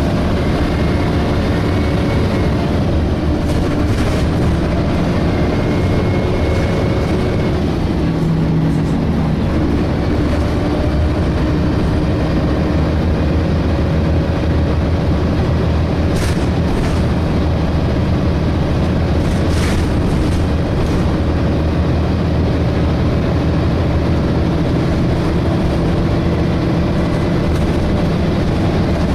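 Onboard sound of a DAF SB220 bus with a Voith automatic gearbox under way: the engine running with a vacuum-cleaner-like 'hoovering' whine from its cooling fan. The engine note drops about eight seconds in and picks up again a couple of seconds later.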